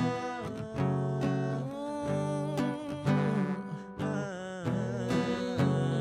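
Acoustic guitar strummed in an instrumental passage, strokes falling at an even rhythm with a brief lull a little past the middle.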